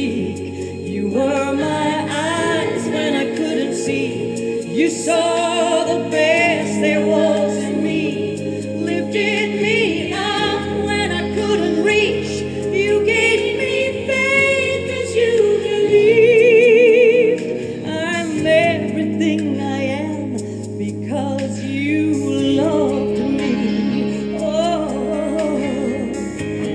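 A woman singing a slow pop ballad over instrumental backing, with long held notes sung with wide vibrato; the loudest held note comes about sixteen seconds in.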